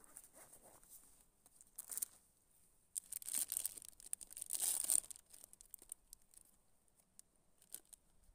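A small plastic packet being torn open and crinkled in the hands: a few seconds of rustling and tearing starting about three seconds in, loudest near the five-second mark, with lighter handling rustles before and after.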